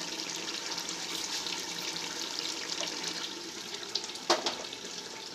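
Chicken masala simmering in a large aluminium pot on a gas stove: a steady, crackly bubbling hiss. A single metal clank from the pot comes about four seconds in.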